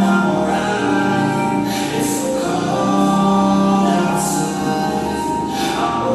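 Music with choir-like singing over held chords and a steady bass note, played through an F&D E200 mini soundbar as a sound test.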